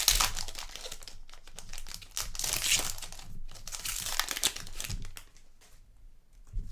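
Crinkling plastic wrapper of a trading card pack being handled and opened. The crinkling comes in several spells over the first five seconds, then dies down.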